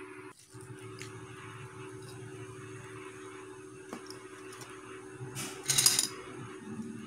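Serving utensils clattering against a plastic bowl as glass noodles are ladled out of a pot: a few faint clicks, then one loud clatter about five and a half seconds in, over a steady low hum.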